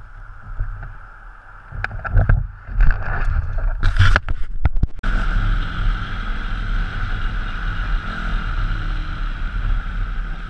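Knocks and clatter for about five seconds, then a sudden switch to the steady rush of wind over a helmet-mounted camera with the low rumble of a 160 cc pit bike's engine while riding.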